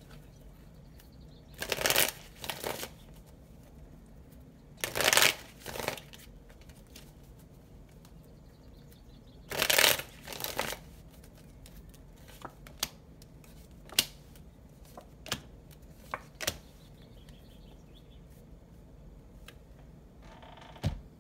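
A deck of oracle cards being shuffled by hand in three short spells, each made of two brisk bursts of riffling about a second apart. A few single sharp clicks follow, then a soft thud near the end.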